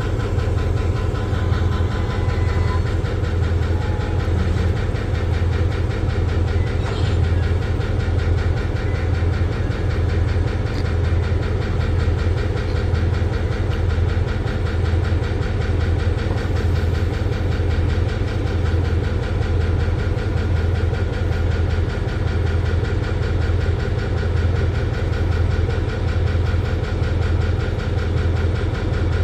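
Diesel locomotive engine running steadily, a low, evenly pulsing rumble.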